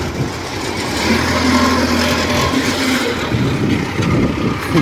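Engine of a tracked rice-carrier crawler running as it drives across the harvested paddy, a steady engine noise with a deeper drone swelling for a second or so near the middle.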